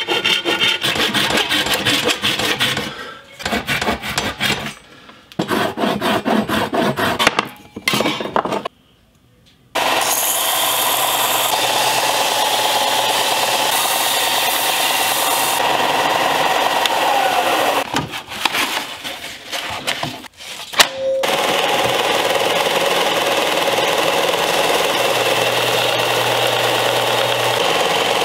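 A hand saw cutting through a hardwood board with quick back-and-forth strokes, in several bursts. About ten seconds in, a Ryobi bench belt sander starts running steadily as a small piece of wood is sanded against the belt. There is a short break partway through, then the sander runs again.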